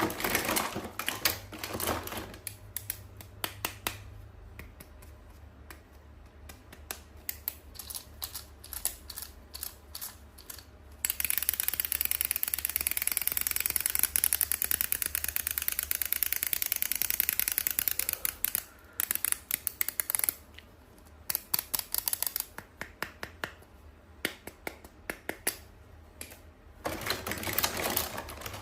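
Close-up handling of toys and packaging: scattered taps and clicks, with a continuous crinkling rustle for about seven seconds in the middle.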